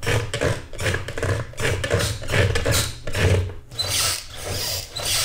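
Longboard trucks squeaking and creaking in irregular repeated bursts, several a second, over a low rumble. The squeak comes from dry pivot cups, neither greased nor oiled.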